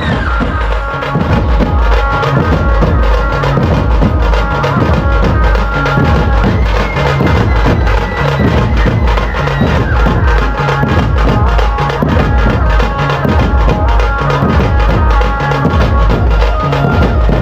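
Loud music driven by drums, with a heavy bass beat repeating at an even pace and melody lines held above it.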